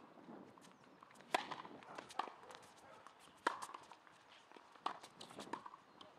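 Tennis ball struck by rackets in a baseline rally on a hard court: sharp hits every one to two seconds, some louder and some fainter, with footsteps on the court between them.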